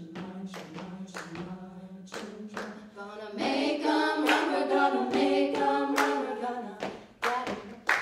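Women's a cappella group singing: a low held drone under a steady percussive beat, then about three seconds in the full group comes in with a loud sustained chord over the continuing beat.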